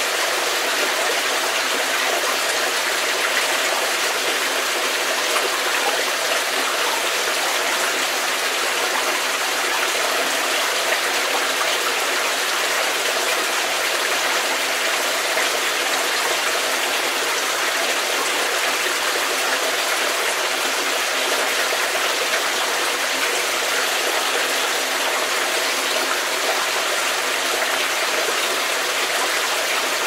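Stream of water running steadily in a cave: an even, unbroken rush of flowing water, bright and hissy with little low rumble.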